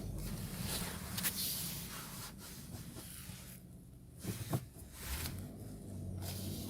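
Suzuki Vitara heard from inside, with a steady low rumble and a few scattered sharp clicks or knocks, the loudest pair about four and a half seconds in. This is the abnormal noise the owner is recording after a repair.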